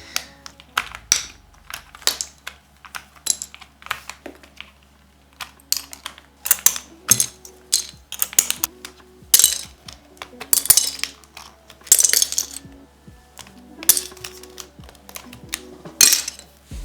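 Plastic keycaps being pulled off a mechanical keyboard one after another: a run of sharp clicks and short plastic rattles.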